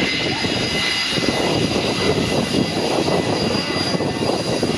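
Airplane jet engines at takeoff power, heard from behind: a loud, steady roar with high whining tones on top.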